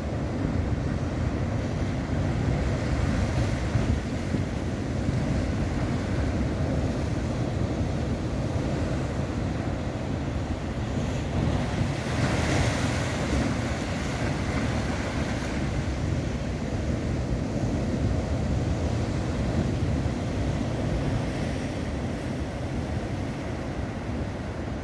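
Ocean surf breaking and washing in among shoreline boulders, a steady rushing wash with a louder crash of a wave hitting the rocks about halfway through.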